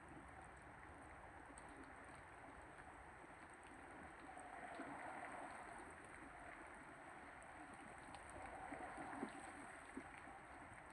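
Faint storm noise of rain and wind. It swells for a couple of seconds around the middle and again near the end, with a few small taps.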